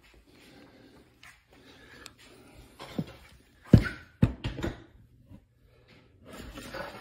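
Knocks and clunks of a bicycle seat post and saddle being handled and fitted onto an electric trike: a few sharp knocks in the middle, the loudest just before four seconds in.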